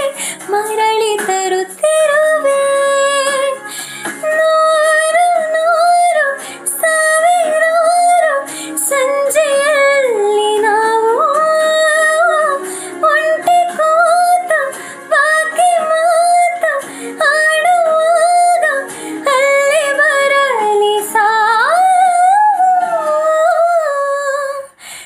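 A woman singing a slow Kannada song melody, holding long notes that bend and glide in ornamented phrases, over a soft accompaniment.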